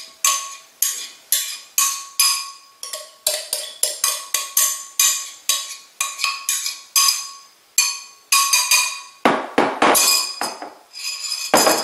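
Batter being beaten by hand in a bowl, the utensil striking the bowl's side about twice a second with short, ringing clinks. A few heavier knocks come near the end.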